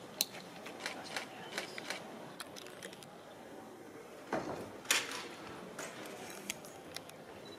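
Quiet outdoor crowd ambience of onlookers, with scattered short sharp clicks throughout and a brief louder sound about four and a half seconds in.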